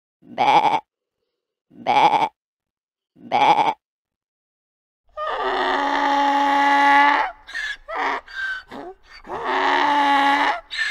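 A sheep bleating three times, about a second and a half apart. After a short pause a donkey brays: a long drawn-out note, a run of short notes, then another long note.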